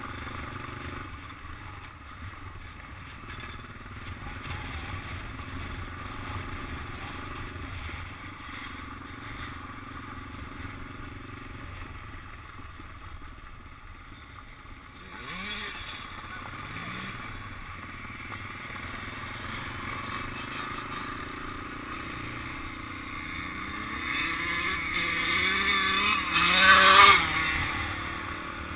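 Dirt bike engine running over a gravel trail, briefly revving about halfway through, then revving up more strongly near the end to its loudest point.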